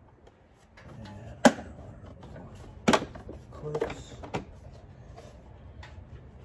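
Hard plastic snapping and knocking as the stock air intake's parts are unclipped and pulled out of the engine bay: a sharp snap about a second and a half in, another about three seconds in, then a few smaller clatters.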